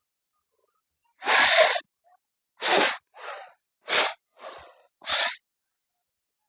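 A woman blowing her nose hard four times, short forceful blasts of air about a second apart, with two fainter breaths in between.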